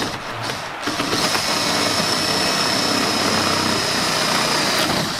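Cordless drill boring through a boat's plywood transom: a short burst or two, then the drill runs steadily under load with a high whine for about four seconds before stopping.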